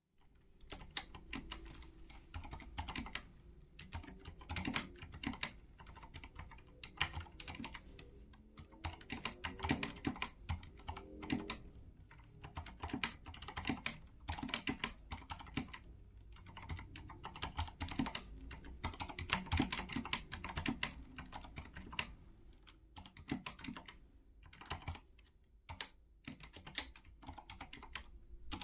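Typing on a Corsair K70 LUX RGB mechanical keyboard with Cherry MX Silent Red linear switches, whose internal dampening keeps each keystroke soft. The keystrokes come in quick, irregular runs with short pauses between them.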